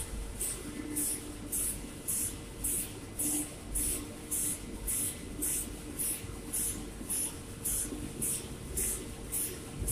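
Machinery running: short, sharp hisses repeating evenly about twice a second over a steady hum.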